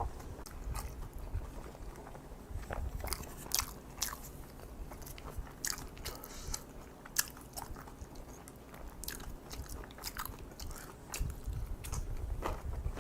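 Close-miked eating sounds of a person chewing kimchi fried rice with kimchi, made of irregular sharp wet clicks and smacks of mouth and teeth.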